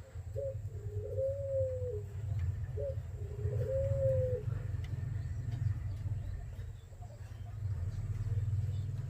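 Spotted dove cooing: three phrases in the first half, each a short note followed by a longer drawn-out coo that rises and then slowly falls, over a steady low rumble.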